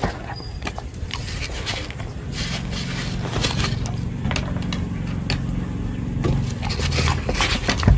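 Dog eating, close up: irregular wet clicks, smacks and crunches of its chewing. A low steady hum joins from about two seconds in and fades near the end.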